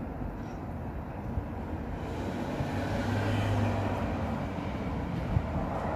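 Vehicle engine noise: a steady low hum that grows louder around the middle and eases off again.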